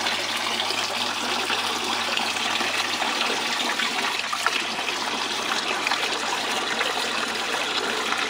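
Water running steadily through a homemade miller table, a thin sheet flowing over the deck and its black sand concentrate.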